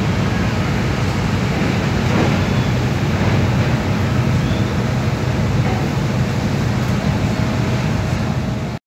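Steady low drone of a car ferry's engines running while it is moored, with no change in pitch; it drops out abruptly for a moment near the end.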